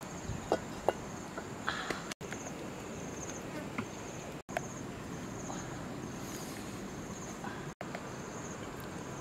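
Insects chirping in a steady pulsing trill over the crackle of a wood cooking fire, with a couple of sharp knocks about half a second in as a steel wok is set down on the fire stones. The sound cuts out for an instant three times.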